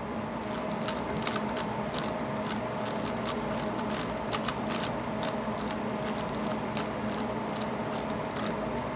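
A plastic 3x3 speedcube being turned fast, its layers clacking in quick irregular runs of clicks, over the steady hum of an air conditioner.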